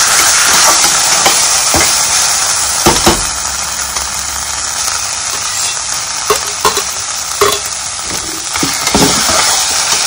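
Sliced onions sizzling in hot oil in an aluminium pressure cooker pot. A steel slotted spatula scrapes and knocks against the pot as they are stirred, with a few sharper clicks about three seconds in and again between six and nine seconds.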